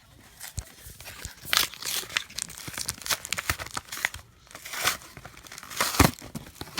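A Pokémon TCG blister pack being torn open by hand: irregular crinkling and ripping of its packaging, in bursts.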